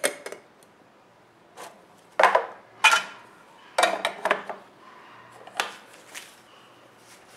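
Clatter of a plastic lid being set onto a glass tea-infuser cup and a metal tea tin being closed and put down on a wooden table: a short series of sharp clicks and knocks, the loudest in the middle.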